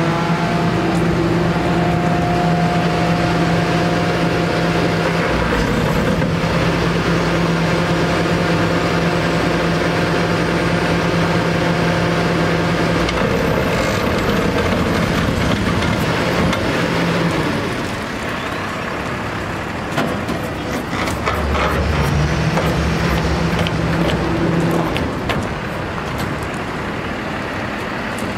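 Hi-Ranger 5TC-55 bucket truck's engine running with its hydraulic system working as the controls at the rear are operated: a steady whine with a hum under it. The whine drops out about two-thirds of the way through while a few clanks are heard, then returns briefly near the end.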